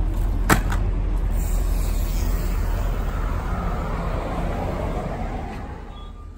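Car on a city street: steady low road and engine rumble with a sharp click about half a second in and a swell of traffic noise in the middle, growing quieter near the end as the car slows.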